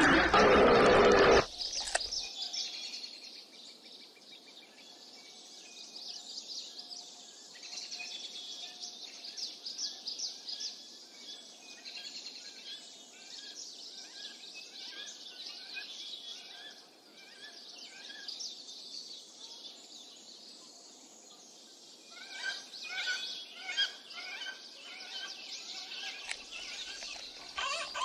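A hippopotamus gives a loud call lasting about a second and a half at the start. After that, small birds chirp and twitter over a steady high-pitched outdoor background. The chirping grows busier over the last few seconds.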